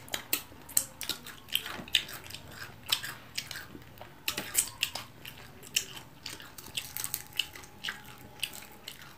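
Close-up eating sounds: chewing and biting with wet mouth smacks and small crunches, many short irregular clicks.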